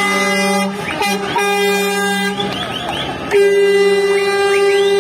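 Truck air horns sounding as lorries pass: a steady blast that breaks off briefly about a second in and stops past two seconds, then a second, higher-pitched horn sounding from a little after three seconds.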